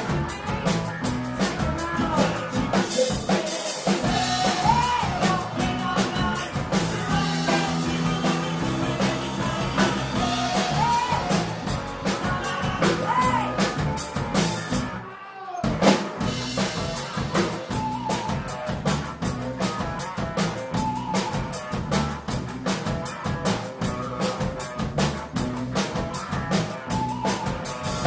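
Live punk-rock cover band playing: a drum kit with a sustained bass and guitar under a singer. The band drops out for a moment about halfway through, then crashes back in with a loud hit.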